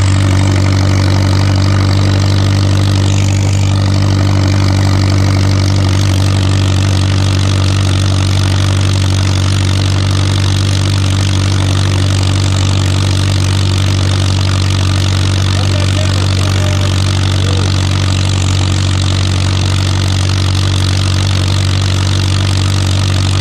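McCormick-Deering Super M tractor's four-cylinder gasoline engine running at a steady pace while travelling in road gear, heard close up from the driver's seat.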